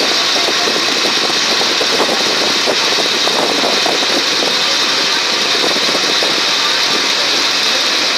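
A ferry boat's engine running steadily while under way, heard on board as a constant loud drone with a steady hiss over it.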